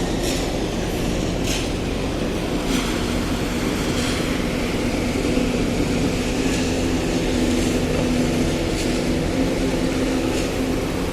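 Concrete mixer-pump machine running steadily, a constant engine hum with brief high clinks now and then.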